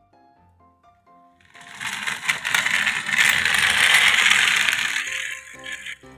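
Toys rattling and clattering: a dense rattle of many small hard pieces starts about a second and a half in, swells, then fades out near the end, over a light background melody.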